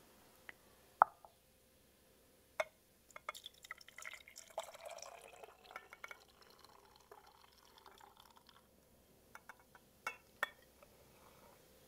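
Parsley juice poured into a glass container for a few seconds, the sound rising slightly as it fills, with light clinks of glass before and after.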